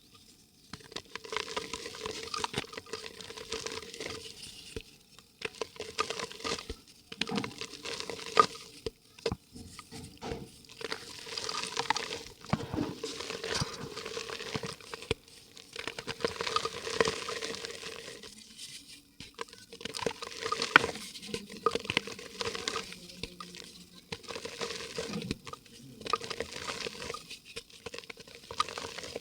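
Dry yellow mud crumbling and soaking up water in a clay pot: dense, irregular crackling and fizzing with pattering bits and occasional sharper clicks, coming in waves with short quieter pauses. A faint steady hum runs underneath.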